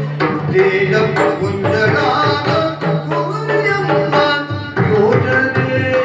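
Yakshagana ensemble music: rapid drum strokes over a steady drone, with a melodic line weaving above.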